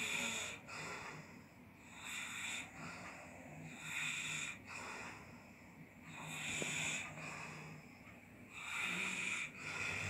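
A sleeping man snoring: a slow, regular rhythm of noisy breaths about every two to two and a half seconds, some with a low rattling drone.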